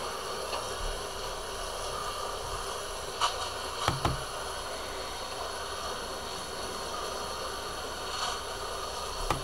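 Garden hose spray nozzle spraying water onto the potting soil in a planter: a steady hiss, with two soft knocks about three and four seconds in.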